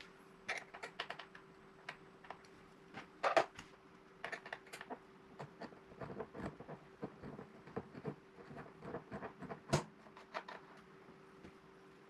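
Irregular light clicks and taps of hand work on a MacBook Pro laptop during a battery replacement, a couple of them louder, over a faint steady hum.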